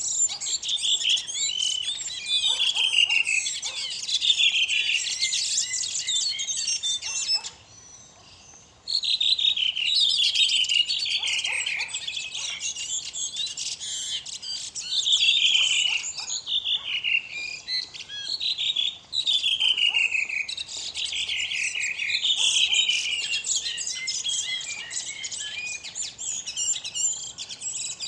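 Caged songbird singing a long, continuous song of fast trills and repeated downward-sliding notes, pausing for about a second and a half once, about eight seconds in.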